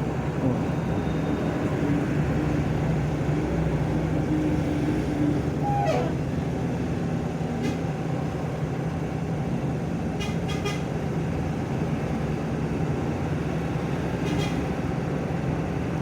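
Bus engine running steadily under a constant noise of tyres on the road, with a short gliding tone about six seconds in and a few faint ticks later.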